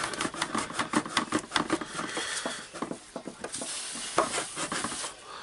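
Metal housings in the front end of a Hilti TE56 hammer drill clicking and scraping as they are worked loose by hand. A rapid run of small clicks thins out after about three seconds into a softer rubbing.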